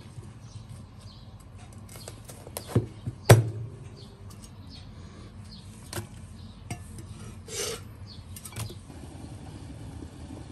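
A cleaver chopping cooked corn cobs on a plastic cutting board: a few sharp knocks, the loudest about three seconds in, followed by sparser kitchen clinks and a brief scrape.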